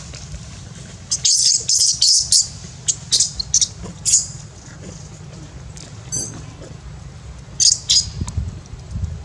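Clusters of short, sharp, high-pitched animal squeaks in quick succession, heard from about a second in, again near six seconds as a quick ticking run, and again near the end, over a steady low wind rumble.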